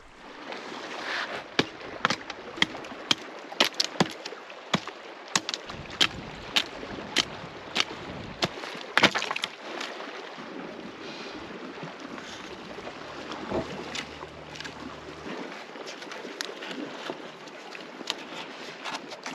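A canoe being hauled up a rocky lakeshore: stones clacking and knocking under the hull and underfoot, a few sharp knocks a second, for about the first nine seconds. After that only faint, scattered handling sounds.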